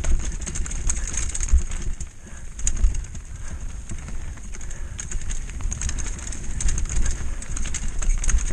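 Mountain bike rattling down a rocky trail: a constant clatter of knocks and clicks as the tyres hit stones and the bike jolts, over a low rumble of wind on the helmet-mounted microphone.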